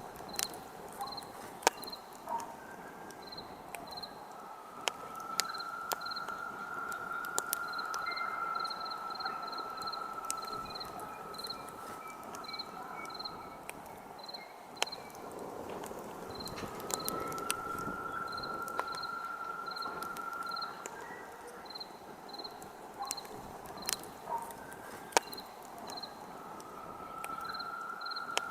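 Campfire crackling with frequent sharp pops, while crickets chirp in a quick, even rhythm. A steady high whistle rises in and fades out for several seconds at a time, twice in the middle and again near the end.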